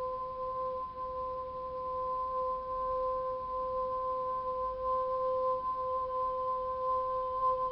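Crystal singing bowls ringing: two steady, pure tones about an octave apart, held throughout, with a faint higher overtone.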